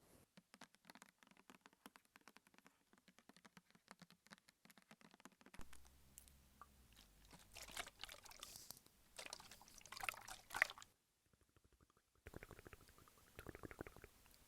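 Close-miked ASMR trigger sounds, soft and wet: fast crackly clicks at first, then from about halfway a stretch of liquid-like rustling and squishing, a brief pause, and the quick clicks again near the end.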